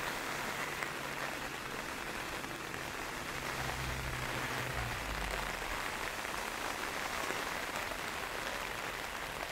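Heavy rain falling steadily on pavement, an even hiss, with a low rumble swelling briefly about halfway through.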